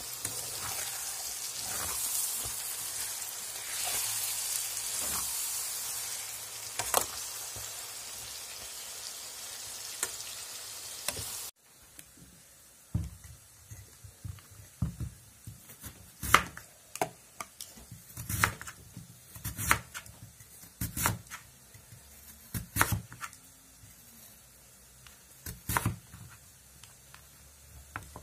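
Chicken, peppers and tomatoes sizzling in a frying pan while a spoon stirs them, with a few scraping clicks. The sizzle cuts off abruptly about eleven seconds in. After that a crinkle-cut knife slices raw potatoes on a wooden cutting board, giving irregular sharp knocks of the blade on the board about once a second.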